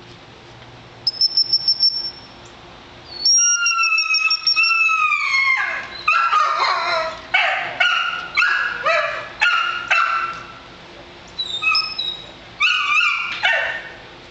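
A quick run of about six short, high whistle pips, then a young Labrador retriever puppy whining and yelping: one long cry that bends down in pitch, then many short rising-and-falling cries with brief pauses between them.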